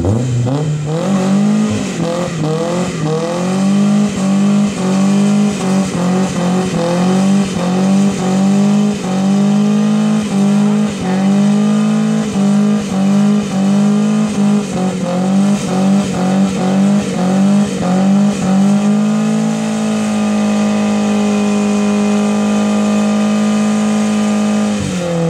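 Nissan 240SX engine run at high revs during a burnout, its rear tyres spinning. It revs up at the start, then dips and climbs back over and over in quick succession for most of the time, and holds a steady high rev for the last five seconds or so before dropping off.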